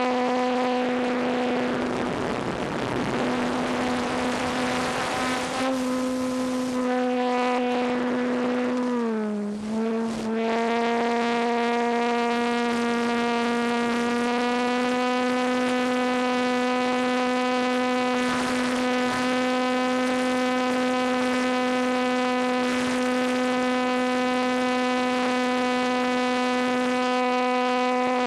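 ParkZone T-28 RC plane's electric motor and propeller, recorded from on board the plane: a loud, steady whine. About nine seconds in, the pitch dips briefly and comes back up. Wind rush over the airframe rises a couple of seconds in.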